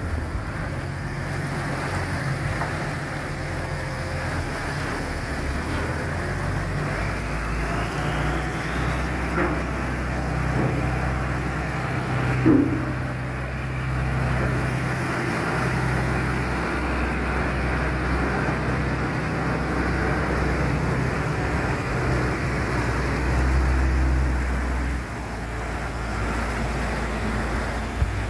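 Cargo boat's engine running with a steady low drone that shifts in pitch and level a few times, over the rush of water churning along the hull. The engine is working to push the boat through a sluice gate against the incoming tide. One short knock about twelve seconds in.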